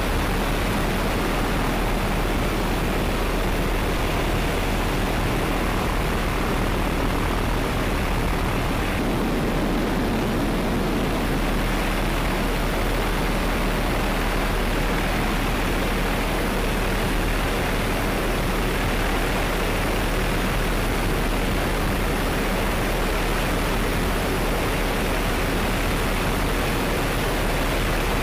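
Helicopter in flight heard from aboard: a steady, even rushing noise of engine, rotor and wind with a constant low hum underneath.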